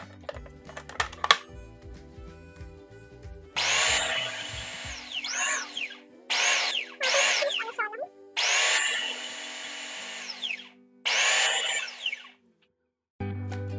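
Oster food processor motor run in five short pulses, its blades whirring through chopped collard greens; each whir dies away as the blades slow. The first and fourth pulses are the longest.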